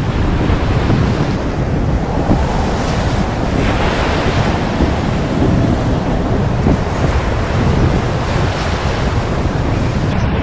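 Strong wind buffeting the microphone over the steady rush of waves and spray past the hulls of a Lagoon 440 catamaran sailing fast in a gale. A loud, even roar, heaviest in the low end.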